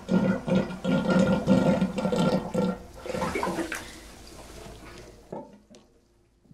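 Water running from a bathtub faucet into a bubble-filled tub, a loud gushing rush that fades away about halfway through, leaving it nearly quiet near the end.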